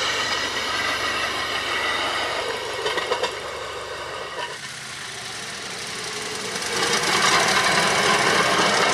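Small engines of motorized rail speeders running along the track, with a few sharp clicks about three seconds in. After a break partway through, the engine note of approaching speeders grows louder.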